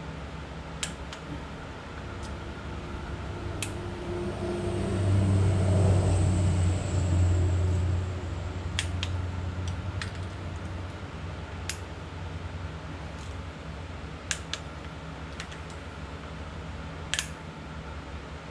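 Sharp, scattered metallic clicks from a torque wrench and socket on a 7.3 Powerstroke's injector hold-down bolts as each one is checked, about a dozen in all. A steady low hum runs underneath, swelling for a few seconds in the middle.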